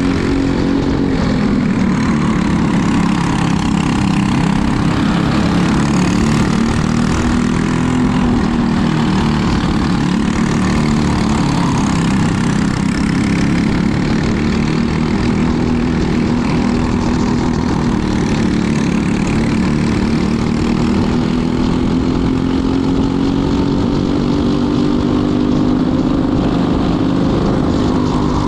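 Racing kart engine heard onboard at race pace, with the karts running close ahead. Its pitch drops and climbs again several times as the kart brakes into corners and accelerates out.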